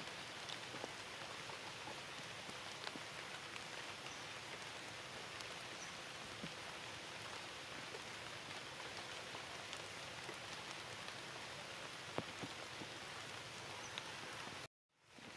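Steady light rain falling, with scattered faint drips and ticks. The sound cuts out suddenly near the end, then fades back in.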